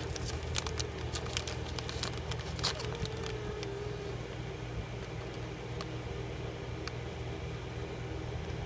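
A plastic biscuit wrapper crinkling and crackling as it is handled, a quick run of sharp clicks over the first three seconds or so, over a steady low hum.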